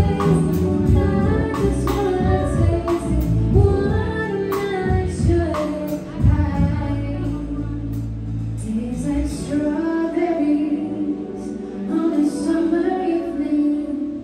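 Live band playing with a woman singing, over guitar and drums. About halfway through the low end and drum hits drop back, leaving the voice over lighter accompaniment.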